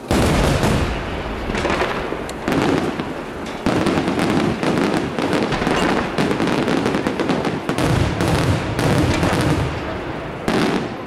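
Aerial firework shells bursting in a rapid barrage: a sudden loud bang at the start, then overlapping bangs and dense crackling, with several louder surges.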